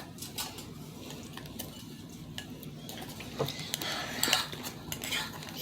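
Spoons clinking and scraping against bowls of berries and almond milk as people eat, a scatter of small irregular clinks.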